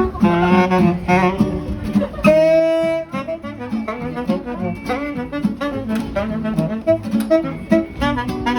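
Live music playing in a jazzy style, a wind-instrument melody of short phrases with one long held note about two seconds in.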